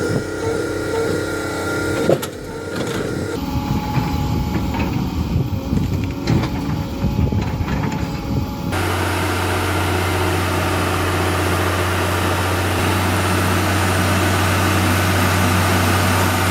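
Heavy diesel log-truck engines running, across a few joined clips that change abruptly; for the last several seconds one engine drones steadily.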